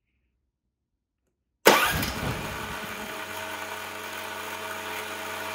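North Star E420 420cc fuel-injected single-cylinder engine firing up suddenly about a second and a half in, after silence, then running steadily. This is one of its first start attempts on the electronic fuel injection.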